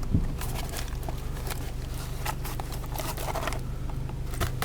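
Irregular rustling and clicking of a brake-pad cardboard box being handled, over the steady low hum of the car's engine and road noise in the cabin.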